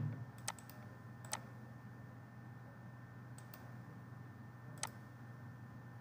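Computer mouse clicking a handful of times at irregular intervals, two of the clicks in quick succession near the middle, over a steady low electrical hum.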